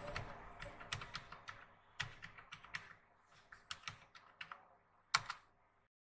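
Faint computer keyboard keystrokes, an irregular run of key clicks as a web address is typed. It ends with one louder key press about five seconds in, the Enter key sending the page off to load.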